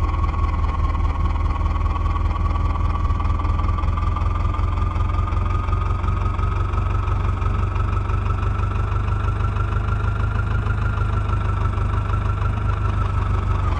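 Heavy diesel engine running steadily under a high, steady whine that slowly rises in pitch over most of the stretch, then eases slightly near the end.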